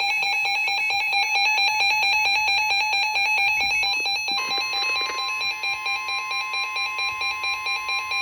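Electronic emergency alert tone from a NOAA Weather Radio / Emergency Alert System broadcast, signalling an incoming warning. A rapidly repeating electronic alarm changes about four seconds in to a steadier single tone that pulses two or three times a second.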